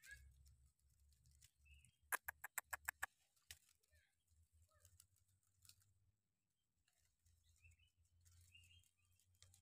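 Near silence: a quick run of about eight sharp clicks a little over two seconds in, one more click half a second later, and a few faint scattered chirps.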